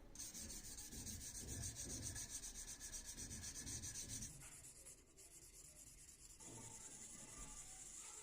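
Hand sanding: sandpaper rubbing back and forth in quick, faint strokes. It eases off about four seconds in and resumes a couple of seconds later.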